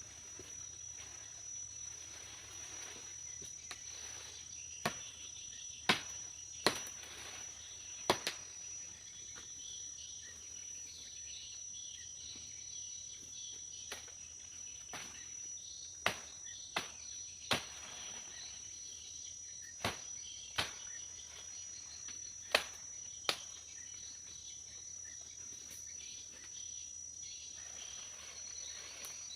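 Insects droning steadily in a high, even tone, with about a dozen sharp knocks, one at a time or in quick pairs, scattered throughout.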